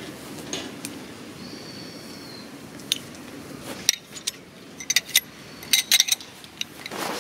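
Metal tent-pole sections being pulled apart and knocked together: a quick run of sharp metallic clicks and clinks in the second half, after a stretch of soft rustling.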